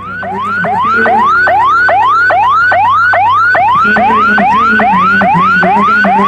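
Ambulance siren in a fast yelp: a rising wail that drops back and repeats about three times a second, swelling up over the first second, loud.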